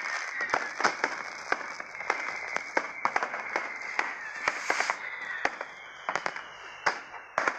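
Fireworks going off: a run of sharp, irregular cracks and pops over a continuous crackling hiss. A thin high whistle falls slowly in pitch in the second half.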